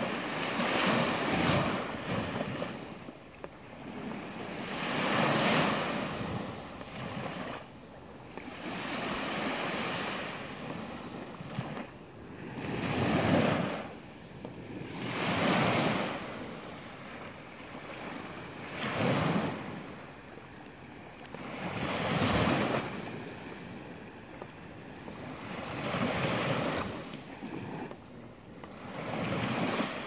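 Small waves breaking and washing up a sandy beach, one surge about every three to four seconds, each swelling and then fading back.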